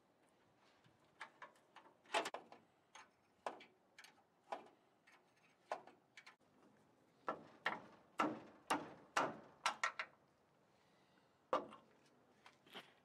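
Irregular metal clicks and clinks of a box-end wrench turning and being repositioned on a hex nut, backing the nut off a rusty carriage bolt, in short clusters with pauses between.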